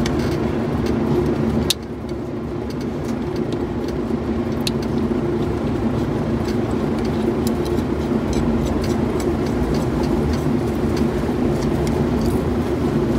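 Steady mechanical drone, with scattered light clicks and a sharp click about two seconds in, where the drone briefly drops.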